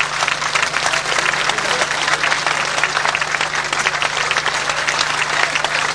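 Audience applauding, a dense, steady patter of many hands clapping, over a constant low hum.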